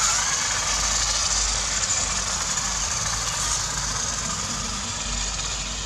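Toy remote-control rock-crawler car's small electric motor and gears whining steadily as it drives across sandy ground.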